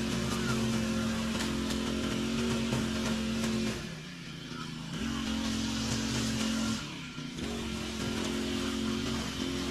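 Lawn mower engine running steadily, its sound dropping off briefly about four seconds in and again around seven seconds before coming back.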